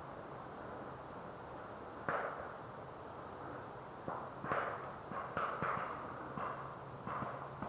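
Paintball markers firing during a game: a single sharp pop about two seconds in, then a quick irregular string of pops.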